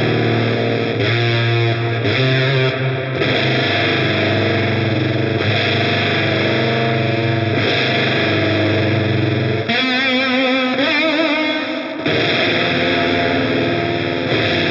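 Electric guitar played through the Audio Disruption Devices Transformations fuzz pedal: thick, distorted, sustained chords. About ten seconds in, a couple of seconds of wavering, warbling notes, then the chords resume.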